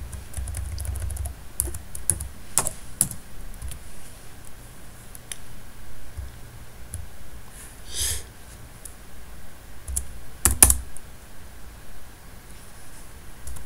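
Typing on a computer keyboard: irregular keystrokes with pauses, a few of them louder clicks.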